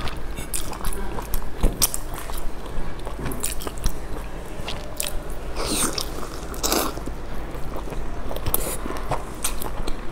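Close-miked eating: a person biting and chewing a soft stuffed wrap dipped in chili sauce, with many short wet mouth clicks. There are louder noisy bites or slurps about six and seven seconds in.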